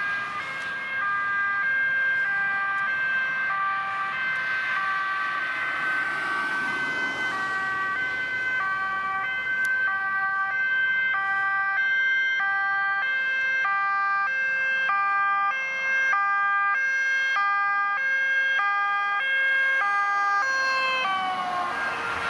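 Police van's two-tone siren switching steadily between a high and a low note, with a steady high tone beneath it. Near the end the whole sound drops in pitch as the van passes.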